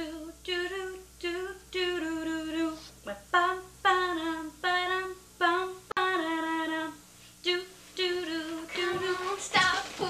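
A woman humming a wordless tune, a string of short held notes with brief gaps between them.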